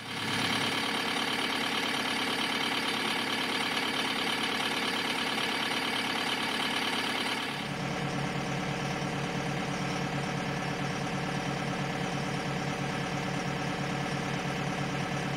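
John Deere 4720 compact tractor's diesel engine idling steadily, its sound changing abruptly about seven and a half seconds in.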